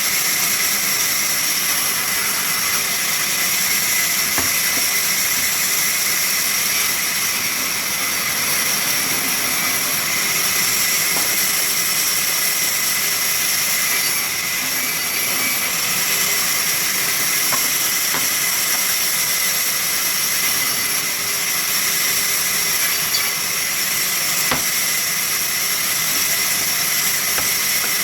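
Sawmill saw running steadily: an even, loud hiss with a constant high whine and a few faint ticks.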